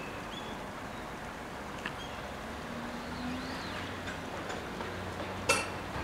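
Steady outdoor background hiss with faint, distant bird chirps, and one short, sharp sound about five and a half seconds in.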